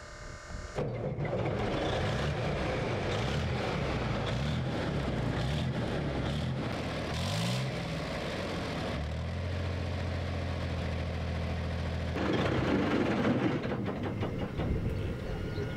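A BMP-2's UTD-20 V6 diesel engine starts up about a second in and runs, revving up once around the middle and then settling to a steady idle. It is a new engine with only 26 hours of running time, which the crew calls golden.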